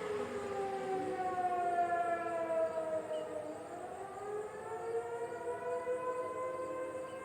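Several distant outdoor tornado warning sirens wailing at once, their pitches slowly rising and falling out of step with one another.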